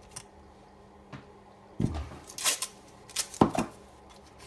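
A few knocks and clatters of hard objects being handled on a workbench, most of them from about two seconds in, the loudest about three and a half seconds in.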